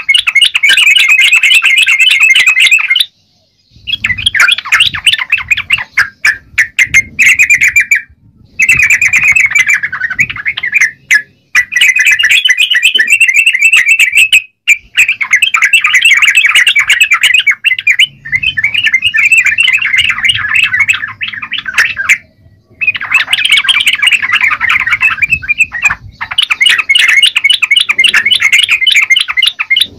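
Yellow-vented bulbul (trucukan) singing vigorously: long, loud runs of rapid chattering notes, broken by several short pauses.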